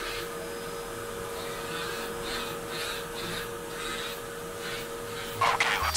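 Electric nail drill running with a steady whine while its grinding bit scales down a thick fungal toenail, giving a rasping grind in repeated strokes about two to three a second. Near the end the whine stops and a short, louder swish follows.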